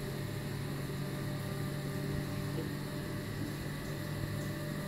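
Steady mechanical hum of a B. Braun Dialog+ hemodialysis machine running with its blood pump turning, while saline is being drained from the lines.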